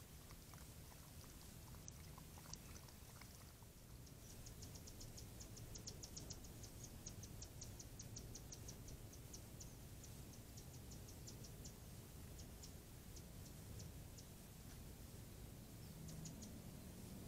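Faint lapping of a coyote drinking from a shallow water dish, soft regular licks for the first three seconds or so. Then a run of quick high-pitched ticks, about five a second, that thins to scattered ticks in the second half.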